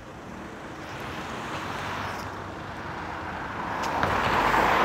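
A car approaching along the street, its tyre and engine noise rising steadily and loudest near the end as it comes close.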